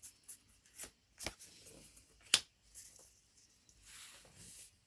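Pokémon trading cards being handled: soft sliding with several sharp clicks as cards are flicked or set down, the loudest about two and a half seconds in, then a soft rustle near the end.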